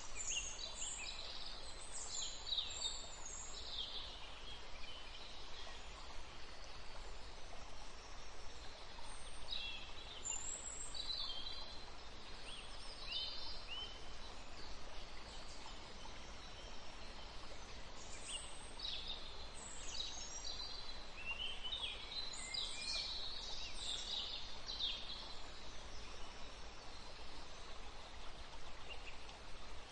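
Birds chirping in several bouts of quick, high, falling notes over a steady faint hiss.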